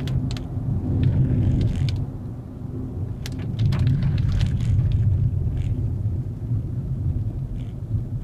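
Volkswagen Vento's 1.2 TSI turbocharged four-cylinder petrol engine and road noise while driving, a steady low rumble that eases about two and a half seconds in and then builds again. Scattered light ticks and rattles sound over it.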